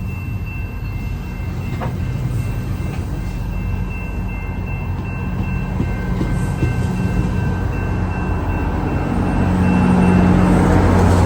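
GO Transit diesel-hauled commuter train passing. The steady engine hum grows louder over the last few seconds.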